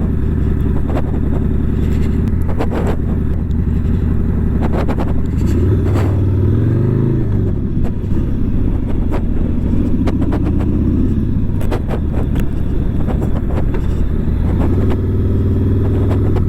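Motorcycle engine running while riding, its revs rising and falling about six seconds in and swelling again near the end, with frequent sharp knocks of wind on the microphone.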